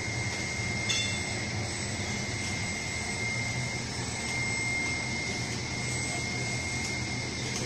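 Steady machine noise of a running air bubble film production line: a low hum of motors and blowers under a steady high-pitched whine, with a short click about a second in.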